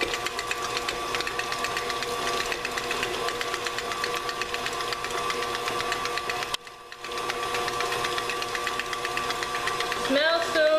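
KitchenAid Classic Plus stand mixer running at low speed, its motor humming steadily with a fast ticking of the gears as the beater works hard butter for cream cheese frosting. The sound drops out briefly about two-thirds of the way through, then picks back up.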